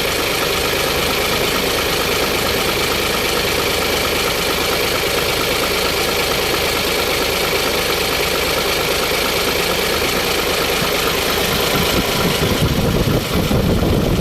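Isuzu 6HK1 inline-six diesel engine idling steadily, running after its injectors were reworked to cure hard starting. Near the end the sound turns deeper and less even.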